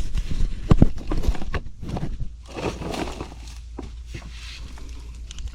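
Scattered knocks and scuffing of a person moving about on a crawl-space floor, busy for the first two seconds, then softer shuffling.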